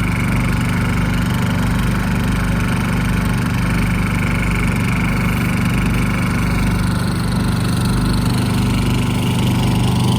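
Portable generator's small engine running steadily under load while it powers a submersible pump that is drawing power and pumping water.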